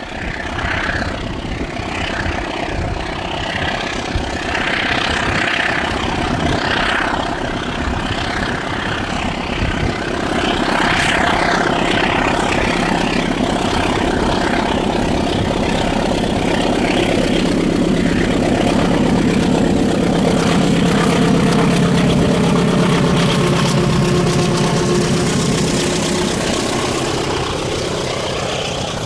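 KAI diesel-electric locomotive's engine working hard as it hauls a passenger train toward and past, growing louder as it approaches. The engine note drops about three-quarters of the way through as the locomotive goes by, leaving the rumble of the coaches rolling past.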